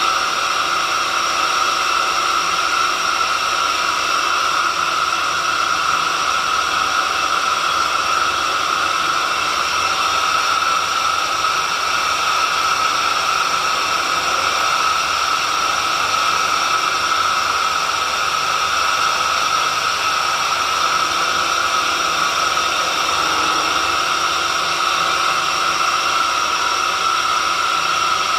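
Homemade horizontal drilling machine running steadily: an unbroken motor whine over a rushing hiss.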